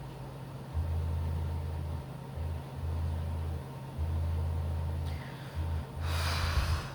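A person hiccuping: a short, noisy, breathy gasp about six seconds in, over a low rumbling hum that cuts in and out.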